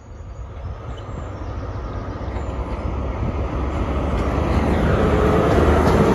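Class 43 HST diesel power cars 43154 and 43155 approaching on the line, engines running, the sound growing steadily louder.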